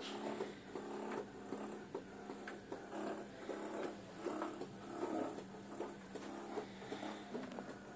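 Federal Signal Aerodynic lightbar's rotator motors running: a steady mechanical whirring with a constant low hum and a repeating pulse, with small clicks throughout.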